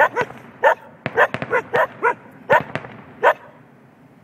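A dog barking repeatedly: about ten short, sharp barks at uneven intervals, some in quick pairs.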